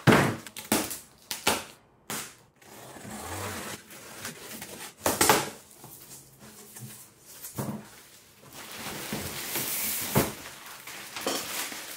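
Unboxing noises from a large cardboard shipping box: sharp snaps and knocks as its packing straps are pulled off, cardboard flaps scraping and a box cutter working, then a steady crinkling of plastic wrap in the last few seconds as the robot lawn mower is lifted out of its foam packing.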